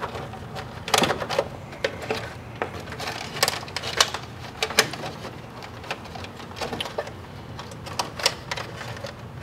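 Irregular clicks, taps and rustles of electrical wires and plastic current clamps being pushed and tucked into a breaker panel, over a steady low hum.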